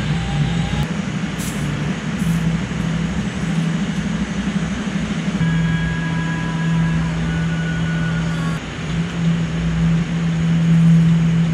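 Background music with a steady low droning bass and a few held higher notes.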